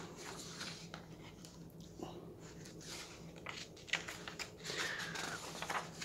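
Paper sheets being leafed through by hand: soft rustles and a few crisp page flicks, with a longer rustle about five seconds in.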